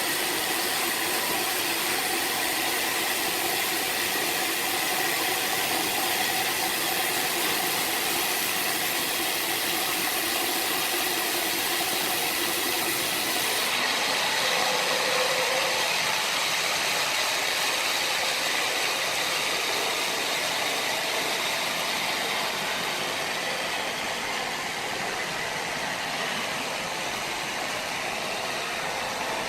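Machinery running steadily, a continuous mechanical noise with faint steady hum tones and no distinct strikes.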